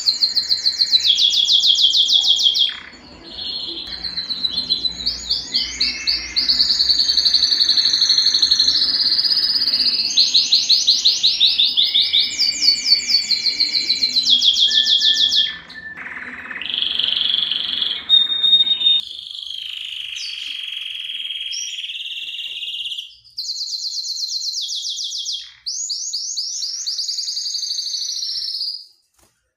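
Domestic canary singing: fast trills of rapidly repeated sweeping notes alternating with held whistled notes, with brief pauses between phrases. About two-thirds of the way through, the low background hum drops out as the song continues on a cleaner recording.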